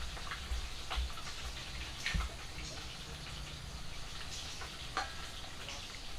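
Irregular light crackling with scattered sharp clicks over a low rumble.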